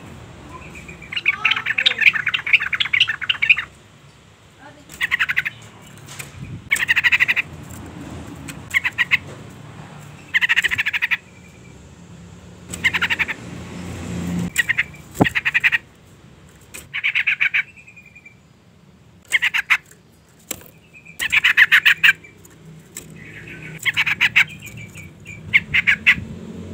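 Yellow-vented bulbul (trucukan), a female, giving its call: about a dozen bursts of rapid, bubbly chattering notes, each half a second to two seconds long, with short pauses between. It is the female's call to a male, the kind used as a lure to get males singing.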